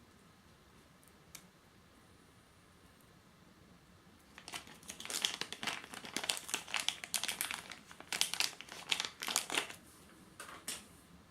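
Packaging crinkling and crackling as it is handled during unpacking, a dense run of crackles starting about four seconds in and stopping about ten seconds in, with one more short crinkle near the end.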